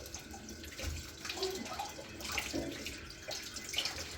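Water running and splashing, with small scattered knocks.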